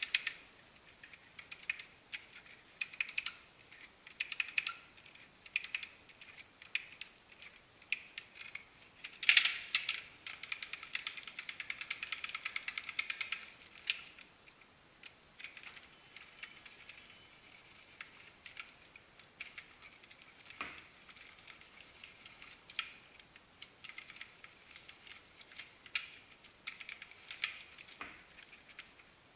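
Plastic copier paper feed unit handled and wiped with a cloth: scattered clicks, knocks and rubbing as the rollers are cleaned, with a run of rapid ratchet-like clicking about nine seconds in that lasts some four seconds as a roller is turned.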